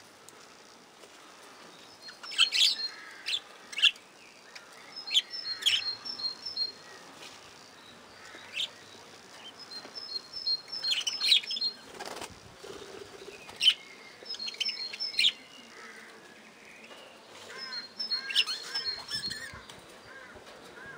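A flock of budgerigars chirping and warbling in short, irregular bursts of quick high notes, with wing flaps as birds flit between perches.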